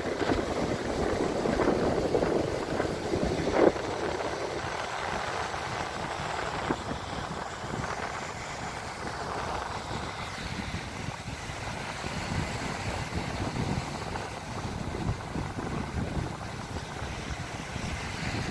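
Wind buffeting the microphone over the wash of sea water, an uneven rushing noise that is a little stronger in the first few seconds. There is a brief sharp sound about three and a half seconds in.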